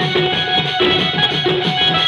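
A Sambalpuri street band playing: drums beaten with sticks in a quick, steady rhythm under a repeating melody line.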